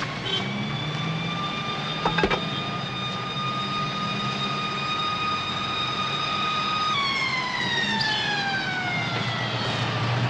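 Bus engine running, with a high whine that holds steady and then falls in pitch over the last few seconds, over a low engine hum. A short knock comes about two seconds in.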